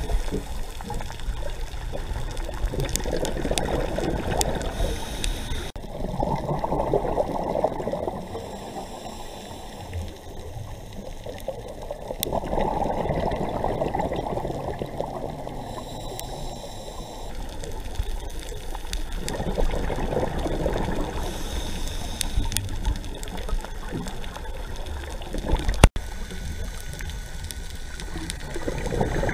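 Muffled underwater sound through a camera's dive housing: a scuba diver's exhaled regulator bubbles swell up and fade away every six or seven seconds, over a steady low rush of water. A single sharp click comes a few seconds before the end.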